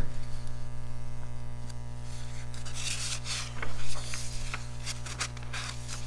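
Paper rustling and sliding as a sketchbook page is turned, loudest about three to four seconds in, over a steady electrical hum.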